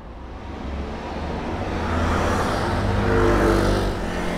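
A car driving past close by on the road: engine and tyre noise swell to a peak about three seconds in, then ease off.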